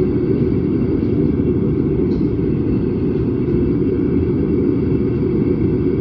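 6-inch waste-oil burner running with a steady, loud low rumble of flame and blower air.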